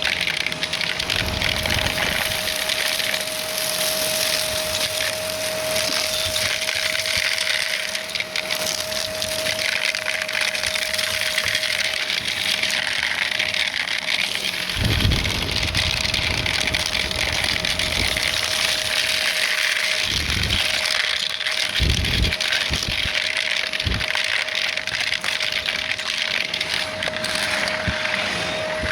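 Shark vacuum cleaner running, with a steady high motor whine over a rush of air. Gritty debris crackles as it is sucked up, and there are several heavy low thumps in the second half.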